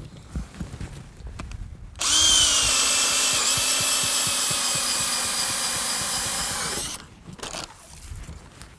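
Powered ice auger drilling a hole through the ice: a steady motor whine that starts abruptly, dips slightly in pitch as the auger bites, then holds steady for about five seconds and cuts off.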